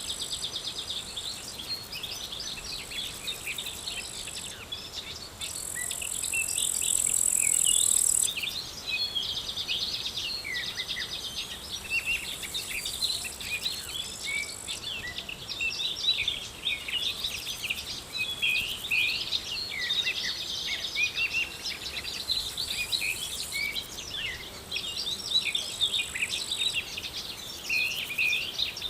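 Many small birds chirping and twittering over one another, with insects trilling in high, shrill stretches that start and stop every few seconds. The insect trill is loudest and swells from about five to eight seconds in.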